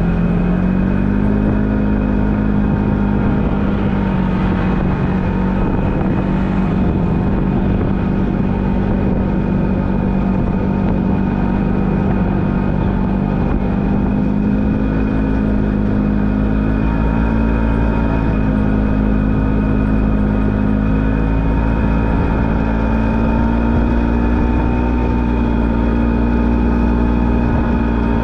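Polaris General XP4 side-by-side's twin-cylinder engine running steadily under way, its pitch rising a little about a second in and again midway.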